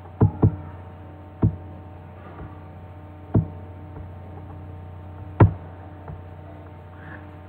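Computer mouse clicking, about five single sharp clicks spread over several seconds, the one near the end the loudest, over a steady electrical hum.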